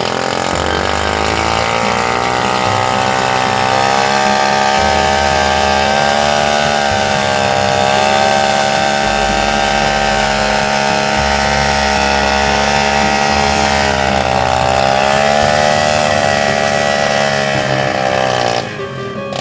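Old motorcycle engine converted into a log-hauling winch, running steadily under load; its pitch sags and recovers slightly as it pulls.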